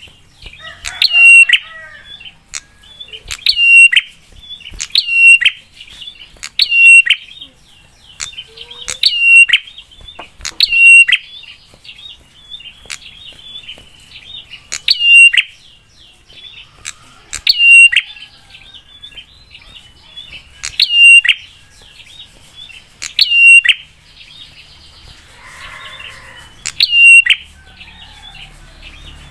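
A prenjak (prinia) calling: loud, sharp notes repeated about every one to two seconds, each a quick downward flick into a short high note, with a couple of brief pauses.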